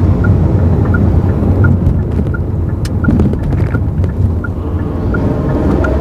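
A Mazda AZ-Wagon MJ23S kei car with a manual gearbox, running with a steady low rumble. This is the gearbox noise the owner presents as abnormal. A light tick repeats about every 0.7 s, and a few sharp clicks come about halfway through.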